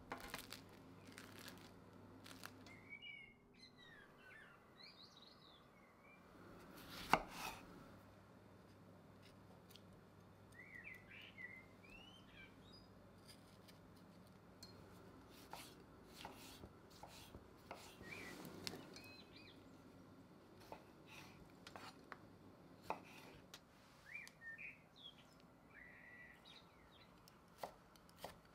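Quiet kitchen knife work: a knife cutting tomatoes and mincing garlic on a wooden chopping board, heard as scattered soft taps and knocks, the loudest a sharp knock about seven seconds in. Birds chirp in the background at intervals.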